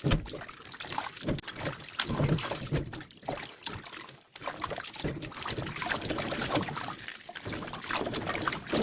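Water pouring and sloshing, with irregular splashes and short knocks of handling.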